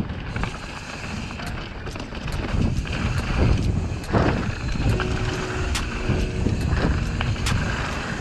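Mountain bike ridden fast down a dry dirt trail: tyres rolling and a constant low rumble, with sharp clicks and rattles from the bike over bumps, heard through an action camera mounted on the rider or bike.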